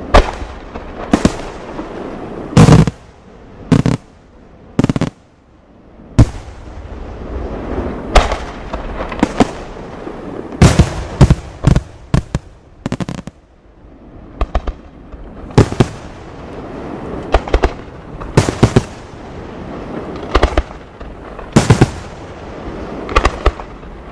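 Aerial firework shells bursting: sharp, loud bangs about once a second, with a quick cluster of several near the middle and a steady low rumble between them.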